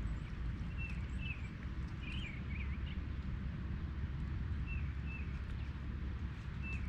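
Short warbling bird chirps come in a few separate phrases over a steady low rumble of outdoor noise.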